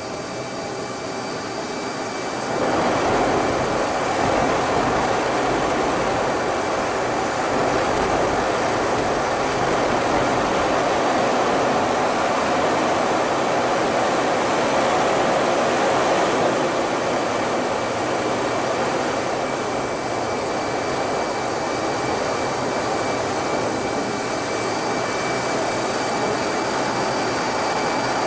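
Inside an F-18 fighter jet's cockpit in flight: a steady rush of jet engine and airflow noise with a thin high whine. It grows louder about two and a half seconds in and eases slightly later on.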